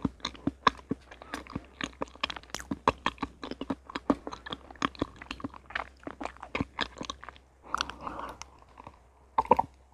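Close-miked chewing of a soft, sticky dessert with the mouth closed, a rapid run of wet clicks several times a second. Near the end the chewing stops, replaced by a brief rustle and two sharp clicks as a clear plastic tumbler is lifted.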